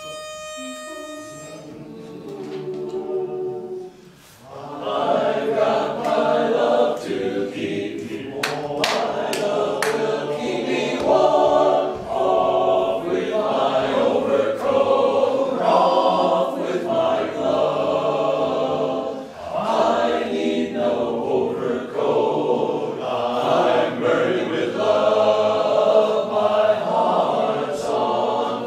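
A single held pitch note sounds for about a second and a half, the voices softly take up their starting notes, and from about four seconds in a choir sings in close harmony.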